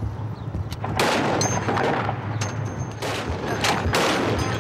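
Gunfire in a firefight: a string of sharp, irregularly spaced shots starting about a second in. Under the shots runs the low, steady hum of an armoured vehicle's engine.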